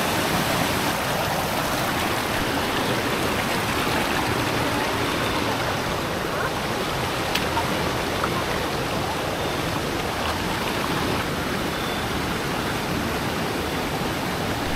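Rushing river water pouring over rocks, a steady, even roar of flowing water.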